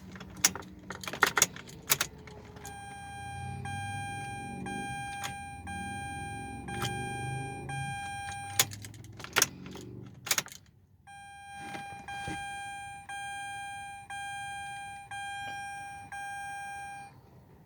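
Car keys jangling and clicking at the ignition, then a 2004 Mazda RX-8's warning chime dinging repeatedly in two runs. An uneven low rumble sits under the first run, and sharp clicks come between the runs.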